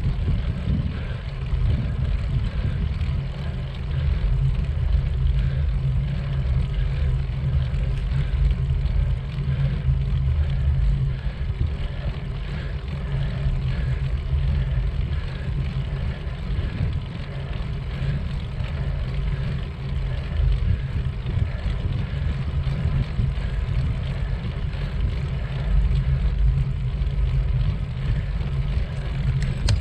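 Wind buffeting the microphone of a camera riding on a bicycle: a steady low rumble that swells and dips in strength.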